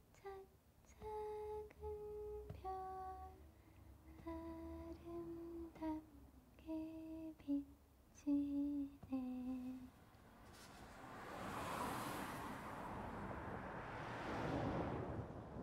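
A voice softly humming a slow lullaby tune, one held note at a time, the melody stepping down to a low closing note about ten seconds in. A soft rushing noise then swells up and holds.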